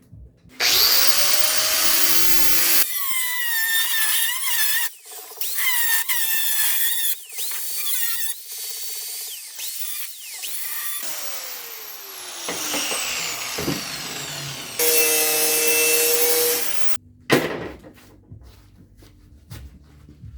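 Electric grinder working sheet steel for a rust-repair patch. Its whine rises and falls as the wheel bites and frees, in several stretches that start and stop abruptly.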